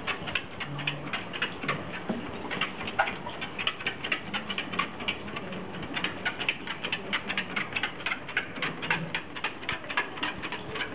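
Light, quick ticking of a dachshund's claws and paws on the moving belt of a PetRun PR720F dog treadmill as it walks: a fairly even patter of about five clicks a second.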